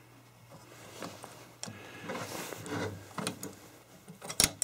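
SKS rifle's steel trigger assembly being handled and fitted down into the receiver: light metal clicks and scraping, with a couple of sharp knocks near the end.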